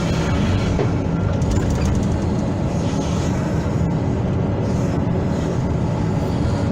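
Hydraulic excavator's diesel engine running steadily, a continuous low, even machine noise.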